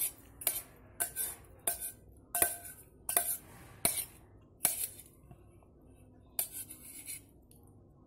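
A spoon clinking against a bowl as a small child eats noodles: about one clink every three-quarters of a second, thinning to a few softer taps after about five seconds.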